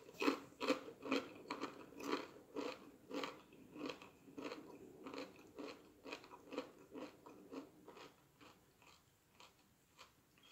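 Close-miked chewing of crunchy Doritos tortilla chips, crunches about twice a second, growing fainter toward the end as the mouthful is chewed down.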